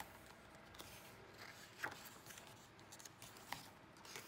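Faint paper handling: the pages of a photo book being turned and pressed flat by hand, with a couple of brief, slightly louder rustles about two and three and a half seconds in.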